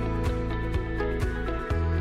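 Background music: sustained notes over a held bass, with a light beat about twice a second; the bass note changes near the end.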